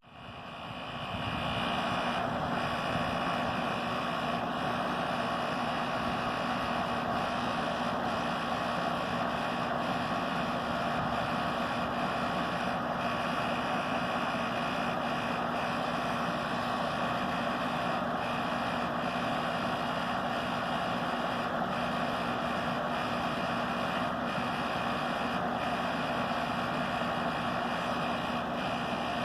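Goodman package heat pump running in heating mode: compressor and outdoor fan giving a steady drone with several constant tones, swelling in over the first couple of seconds and then holding level. The compressor sounds angry, and the owner doubts it is worth repairing.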